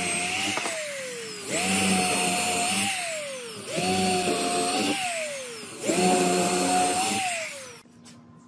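Handheld electric drill boring holes into pine boards in short runs: the motor starts, runs steadily for about a second, then winds down with a falling whine each time the trigger is released. It does this four times, and the last run dies away near the end.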